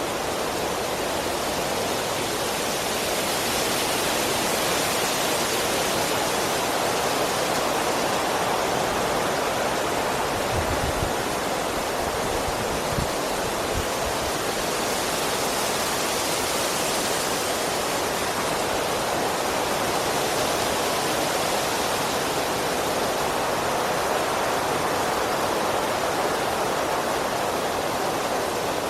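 Strong wind blowing through trees: a steady rushing of leaves and branches that swells and eases in gusts, with a couple of brief low thumps near the middle.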